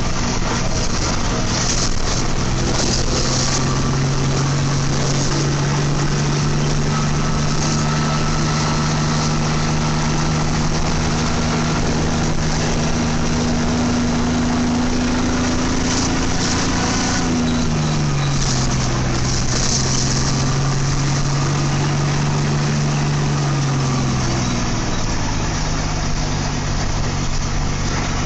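Large bus engine running steadily. Its pitch slides down about 17 seconds in and comes back up about 24 seconds in, as the revs change.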